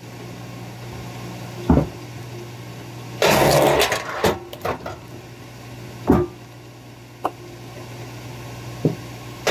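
K-10 log splitter running with a steady motor hum while a log is split into thin slabs: a few sharp knocks of wood on the wedge and table, and a louder stretch of cracking and clattering wood about three seconds in.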